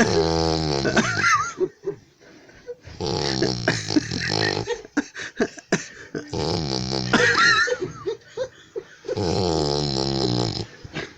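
A person snoring loudly: four long, rattling snores, one about every three seconds, with a whistling note near the end of two of them.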